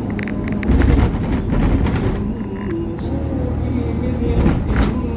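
Car driving along a road: a steady low engine and tyre rumble, with faint melodic music over it. A few brief rushing surges come about a second in and again near the end.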